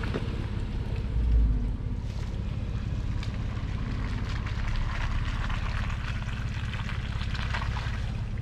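Off-road SUV engine running low and steady at crawling pace, with a brief low thump about a second in.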